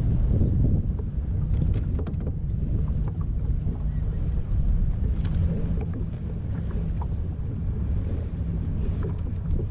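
Wind buffeting the microphone on a kayak on open water, a steady low rumble, with a few faint clicks scattered through it.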